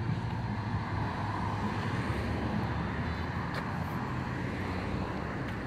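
Road traffic: cars running along the street, with a steady low engine hum under the noise of tyres on the road.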